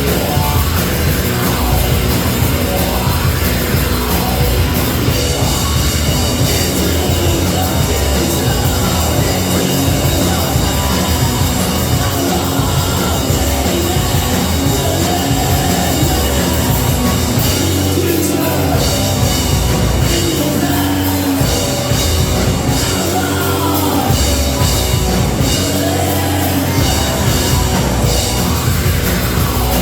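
Loud live rock band playing: distorted electric guitars, bass and drum kit, with a voice singing over them at times.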